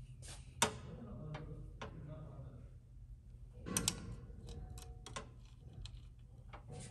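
A few sharp clicks and knocks from parts being handled in an engine bay, as hands work at an intake pipe and its silicone coupler; the clearest come about half a second and about four seconds in. A steady low hum runs underneath.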